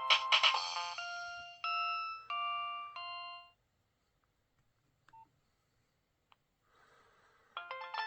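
Nokia 6030 mobile phone ringtones playing from the phone's speaker. One ringtone ends on a few separate held notes about three and a half seconds in, then after a short gap with a couple of faint clicks and one short tone, the next ringtone starts near the end.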